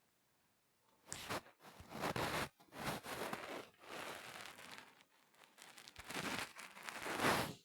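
Rustling, crinkling noise in several loud bursts, starting about a second in and cutting off suddenly at the end.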